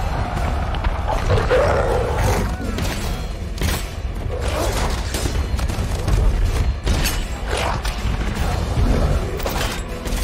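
Film battle soundtrack: a dramatic music score over a steady deep rumble, with beast-like roars and growls from a charging werewolf horde and repeated sharp hits.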